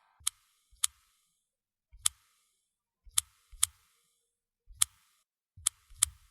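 Smartphone keyboard tap clicks of someone typing a WhatsApp message: about eight short, sharp taps at an uneven pace.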